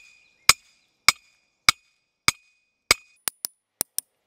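An 8-pound sledgehammer pounding a metal greenhouse ground stake into the ground through a pounding block fitted in its top. Five sharp strikes come about every half second, each with a brief metallic ring, then quicker, lighter knocks near the end.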